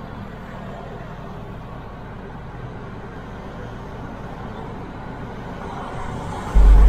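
Steady road and engine noise heard inside a car moving in slow traffic, with a short deep thump near the end.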